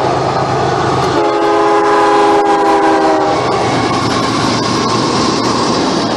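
Diesel freight locomotive's multi-chime air horn sounding one blast of about two seconds, starting about a second in, over the loud rush of the train passing at high speed. After the horn stops, the wheel and car noise carries on with clicks of wheels over rail joints.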